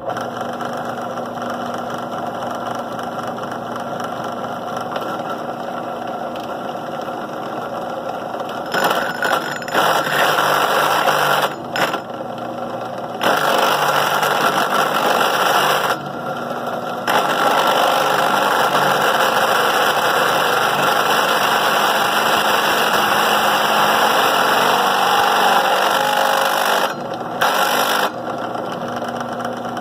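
Drill press running with its bit cutting into a stainless steel dome, hard metal to drill. It gets louder in several bouts while the bit bites and drops back to the motor's steady hum each time the feed is eased off.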